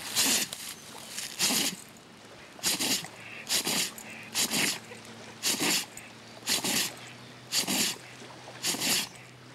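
A dog sneezing over and over, about one sharp sneeze a second, nine or so in a row; the fit is put down to allergies.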